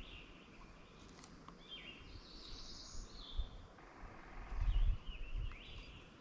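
Birds singing in the background: a series of quick, sweeping high chirps and whistles. A low rumbling bump about four and a half seconds in is the loudest sound.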